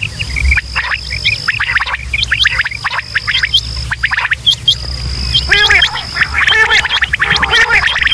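Quail calling in a dense chorus of short, sharp repeated notes, several birds overlapping, with a steady high-pitched tone that breaks off and comes back behind them. Lower, rounder calls join in from about five seconds in.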